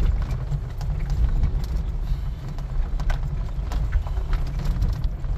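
Car cabin on a rough gravel and dirt road: a steady low rumble from the tyres and suspension, broken by irregular knocks and clatter from loose stones under the car.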